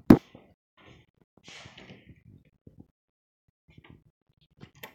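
A single sharp thump, then a breathy sigh or exhale about a second and a half later, and a few faint handling clicks near the end.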